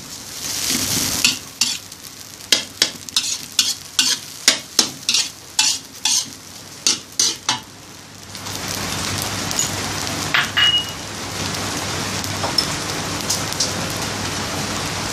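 Metal spatula scraping and clacking against a steel wok as rice is stir-fried, a couple of strikes a second. About eight seconds in the stirring stops and the rice keeps sizzling steadily in the hot wok.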